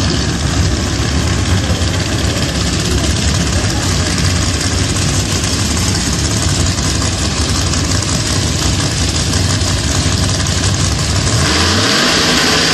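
Drag race car engine idling loudly with a rapid, pulsing rumble as the car rolls toward the line. About a second before the end the revs climb and hold higher.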